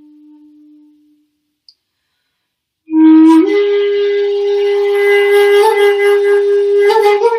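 Shakuhachi (Japanese end-blown bamboo flute) playing a slow solo. The last low note fades out in the first second, and after about two seconds of silence a loud, breathy new long note enters, steps up slightly just after, and is held.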